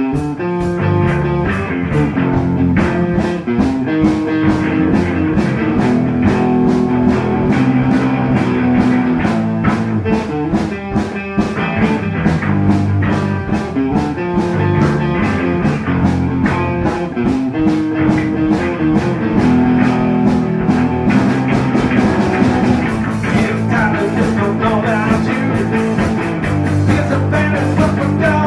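Rock band playing an instrumental passage without vocals: guitar over bass and a steady drum beat.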